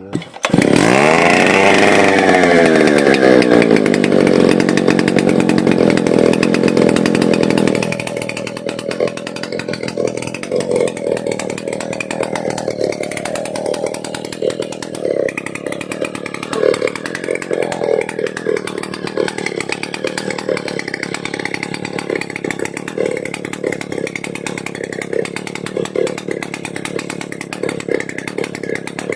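Stihl 070 two-stroke chainsaw engine starting and revving up. It is held at high revs for several seconds, then drops to a lumpy, uneven idle at about eight seconds in.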